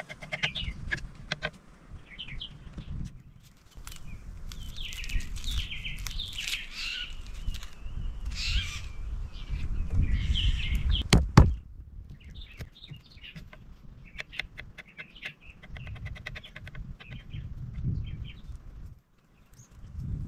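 Birds chirping and calling, in clusters that are busiest through the middle, over a low rumble. There are scattered small knocks and one sharp click a little past halfway, the loudest single sound.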